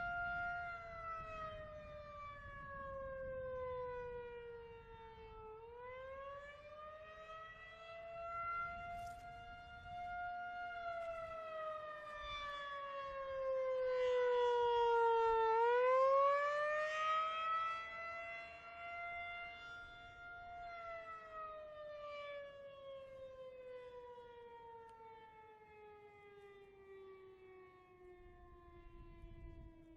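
Outdoor tornado warning siren sounding its monthly test wail. Its pitch slowly falls and rises twice, about ten seconds per swing, and it is loudest around the middle. From about two-thirds in, the pitch glides steadily down below its earlier low points and the sound fades as the siren begins to wind down.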